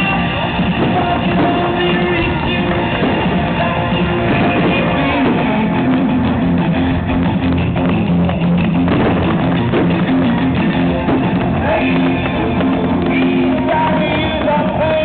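Rock music with drums and electric guitar.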